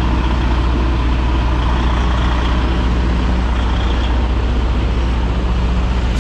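Semi truck's diesel engine running steadily at low revs while the tractor is backed under a trailer, a constant low hum with no change in pitch.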